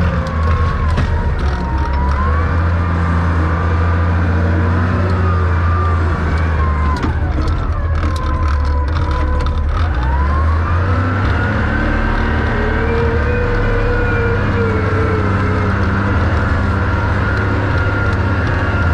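Heavy vehicle engine running steadily. Its pitch drops about seven seconds in and climbs again from about ten seconds, with some light clatter in between.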